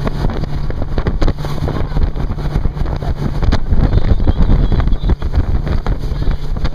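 Small motorboat under way at speed: a steady engine drone, water rushing past the hull, and heavy wind buffeting the microphone.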